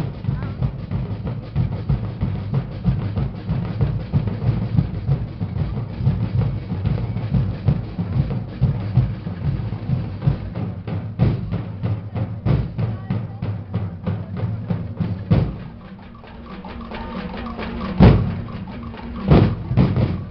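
Drum and percussion ensemble playing a fast, steady beat. About fifteen seconds in it breaks off with a loud strike, followed by two more loud accented strikes near the end.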